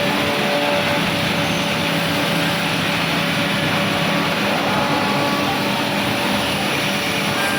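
Bacci Artist TGV 2600 CNC machining centre running: a steady machine noise with a faint hum held under it, unchanging throughout.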